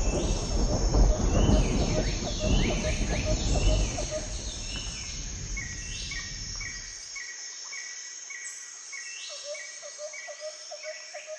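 A deep rumble that fades out and then cuts off about seven seconds in, under evenly repeated high chirps like birds or insects, with a few falling sweeps early on.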